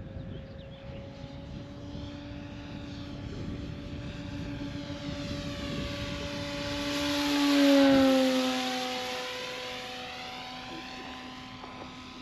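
Radio-controlled model Hawker Tempest flying past. Its engine and propeller note grows louder to a peak about eight seconds in, then drops in pitch and fades away.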